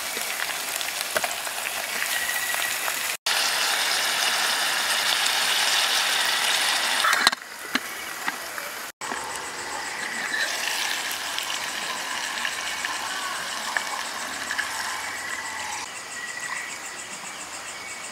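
Chicken, onion and garlic sizzling in a metal pot on a portable gas camp stove, a steady hiss that is loudest in the middle, with a sharp knock about seven seconds in.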